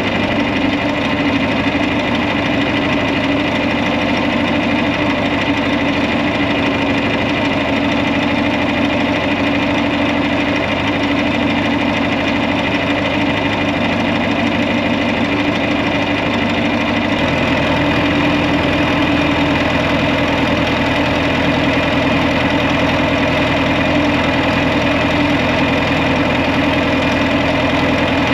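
Tractor engine running steadily, its low note shifting about 17 seconds in.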